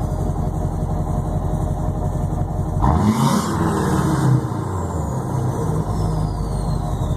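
LBZ Duramax 6.6-litre V8 turbodiesel idling, blipped once about three seconds in for a second and a half before dropping back to idle. A high turbo whistle falls away in pitch after the rev.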